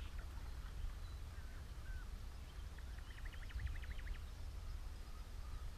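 Wind rumbling on the microphone, with a few short bird chirps and then a quick bird trill of about ten notes a little after halfway through.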